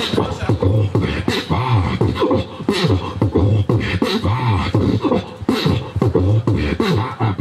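Human beatboxing into a microphone: quick, continuous mouth-made drum sounds, with a pitched vocal line sliding up and down underneath.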